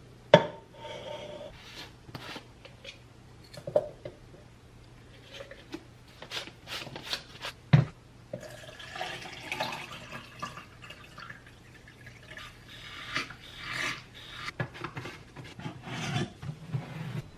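Handling noises: rubbing and rustling with scattered clicks and knocks, the loudest knock about eight seconds in.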